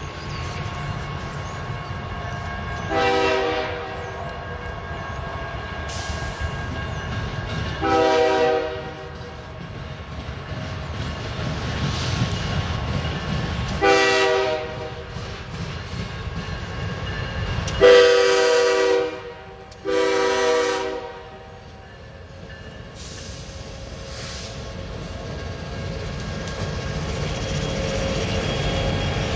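Diesel freight locomotive's air horn sounding five blasts for a grade crossing, the fourth the longest and loudest. Beneath the horn runs the steady low rumble of the train, growing toward the end as the locomotives roll across the crossing.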